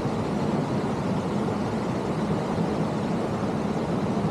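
Steady rushing noise of falling water from a waterfall.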